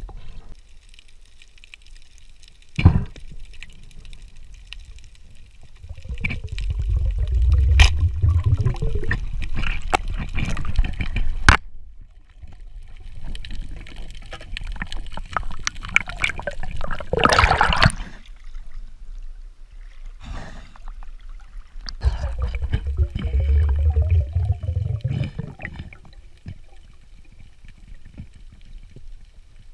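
Underwater water noise: two long swells of bubbling and gurgling, with a few sharp clicks and a brief loud hiss between them.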